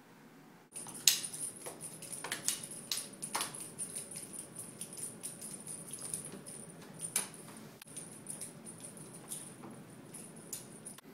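Cat toy rattling and jingling as it is dragged and batted across a rug and wooden floor, with a kitten's paws scrabbling after it. There are irregular clicks and knocks throughout, the loudest about a second in.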